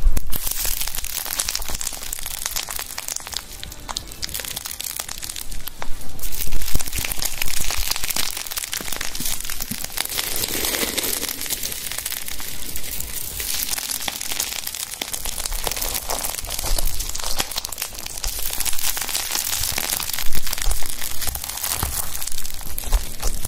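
Continuous dense crackling hiss, thick with fine clicks, that swells louder and fades back every few seconds over a faint low rumble.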